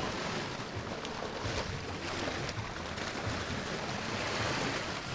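Small sea waves washing against shoreline rocks, with splashing as a person wades out through the shallows.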